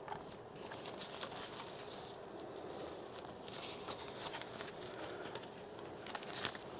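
Soft rustling and scattered small clicks and taps as a large white PLM umbrella and its Einstein strobe head are adjusted by hand on a light stand, over a faint steady hum.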